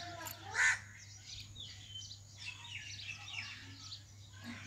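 Birds chirping and calling in waterside vegetation, many short high chirps throughout. There is one loud short call about half a second in, over a faint steady low hum.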